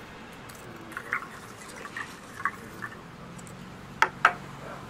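Diner ambience: scattered short clinks of dishes and cutlery over steady room noise, with two sharp, louder clinks close together about four seconds in. A faint low hum comes in around the middle.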